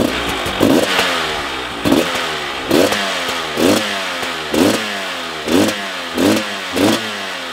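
300 cc two-stroke enduro motorcycle engine fitted with an FMF exhaust, revved in short throttle blips about once a second, the revs falling back toward idle between each blip.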